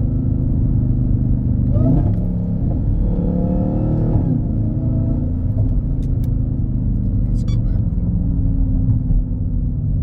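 Supercharged 6.2-litre HEMI V8 of a 2021 Dodge Charger Hellcat Widebody, fitted with a Legmaker cold air intake in a JLT airbox, heard from inside the cabin while driving: a steady low rumble, with the engine note briefly rising around two seconds in and again between three and four seconds.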